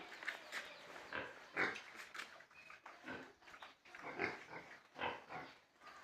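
Pigs making a string of short, irregular calls, several in quick succession.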